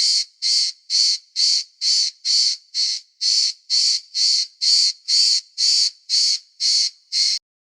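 Cricket chirping in a steady rhythm, about two to three short chirps a second, high-pitched; it stops shortly before the end.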